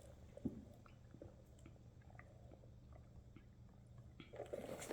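Faint chewing of a snack, with small scattered crunching clicks; one slightly louder click about half a second in.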